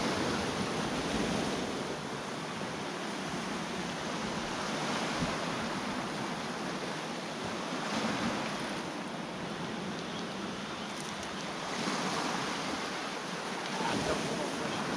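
Sea waves washing onto the shore, a steady rushing noise that swells and eases every few seconds, with some wind on the microphone.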